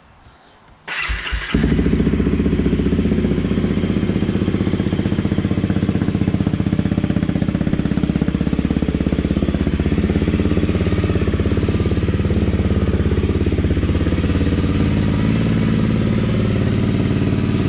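Honda CRF250L's single-cylinder engine is started on the electric starter about a second in, catches almost at once and then idles steadily. It is a cold start, run to warm the oil before it is drained.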